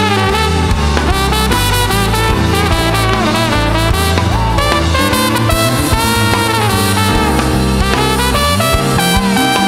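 Live band instrumental: a trumpet plays a lead melody over electric bass guitar and a drum kit.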